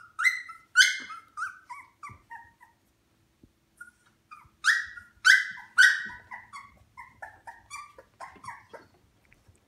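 Newborn Shikoku puppy crying: short, high-pitched whimpers and yelps, each falling in pitch. They come in two bouts, one at the start and one from about four and a half seconds in.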